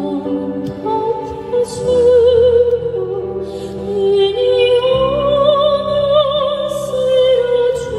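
A woman singing a slow melody with wide vibrato over sustained keyboard chords.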